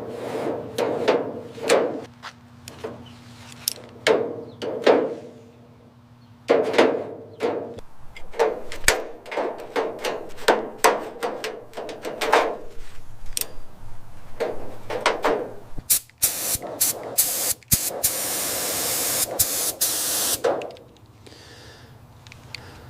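Irregular hammer-like knocks on metal, each strike ringing briefly, then a stretch of steady hissing with clicks through it in the second half.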